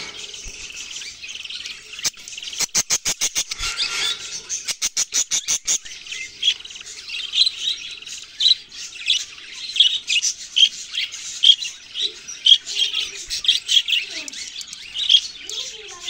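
Budgerigar chicks giving begging calls while an adult feeds them: a run of rapid, evenly spaced high chirps a few seconds in, then scattered high chirps.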